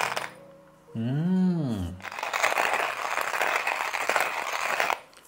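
Porlex hand grinder's ceramic burrs crunching a few coffee beans as the crank is turned: a gritty grinding noise for a moment at the start and again for about three seconds from two seconds in. Between them, a short vocal 'ooh' rises and falls in pitch.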